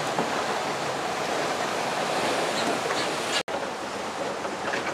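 Steady rush of waves and sea water, without any pitched engine or voice, broken by a split-second dropout about three and a half seconds in.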